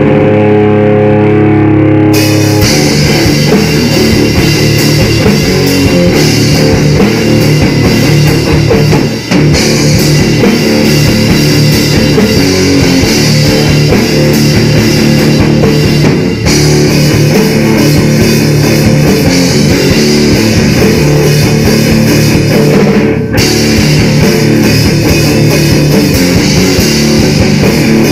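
A rock band jamming with electric guitars and a drum kit. A guitar plays alone for about the first two seconds, then the drums and the rest of the band come in loud. The playing runs on with a few very brief breaks.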